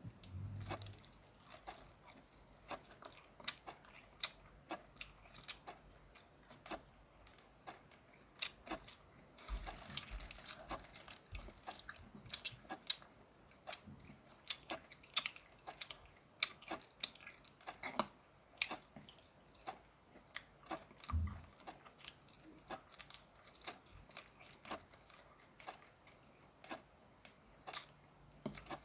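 A person chewing and biting steamed shrimp: a run of irregular, sharp wet mouth clicks and smacks, several a second.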